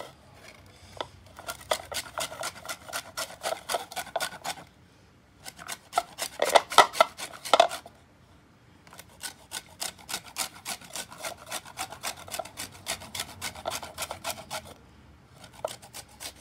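A green lemon rubbed hard against the fine side of a manual box grater, grating off the peel: fast rasping strokes in several runs with short pauses between, the middle run the loudest.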